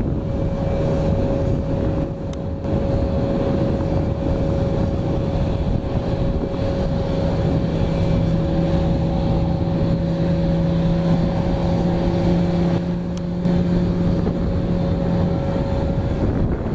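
Airbus A330 jet engines at climb power just after takeoff: a steady rumble with a few held humming tones, mixed with wind noise on the microphone.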